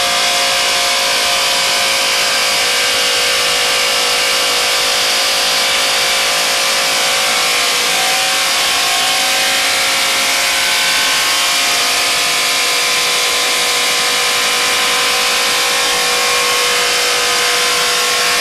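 Sungan SA-743 150 HP combination wood chipper-shredder running at full speed, a loud, unbroken machine noise with a steady hum.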